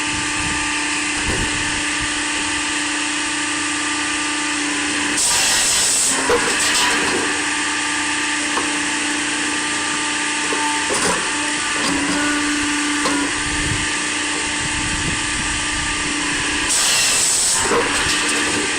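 Motor-driven saw running at a steady pitch, with two louder, harsher stretches about five and seventeen seconds in as it bites into wood.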